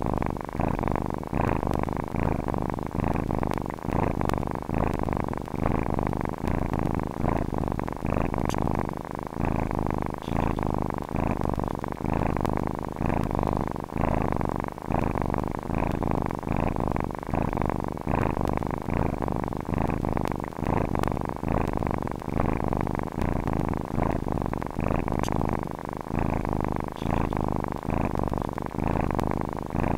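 Domestic cat purring steadily and close up, the purr swelling and easing in an even rhythm.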